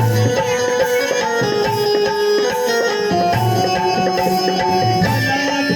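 Instrumental interlude of a Hindi devotional-style song: a steady hand-drum rhythm under a sustained melody line.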